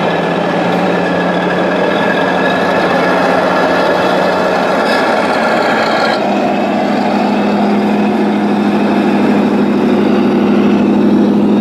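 Engine sound of radio-controlled Scania truck models, played through their sound modules, running steadily. About six seconds in, a higher whine stops and the engine note steps slightly higher.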